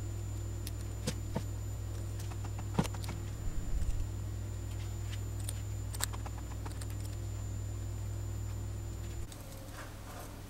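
Small scattered clicks and taps of a plastic applicator against the metal rocker arms as grease is dabbed into a model V8 engine's valvetrain. Under them runs a steady low hum with a faint high whine, and the hum drops near the end.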